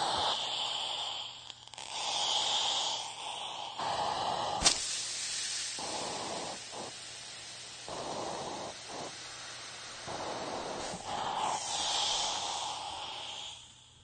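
Steam iron in use, hissing in uneven bursts of steam during ironing. One sharp click about four and a half seconds in.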